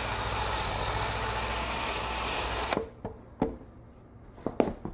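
Cordless drill spinning a wire wheel brush against a metal patch on a steel air compressor tank, a steady whirring scrape that cuts off abruptly near the three-second mark. The wire brush is burnishing the repair patch to a shine. A few light clicks follow.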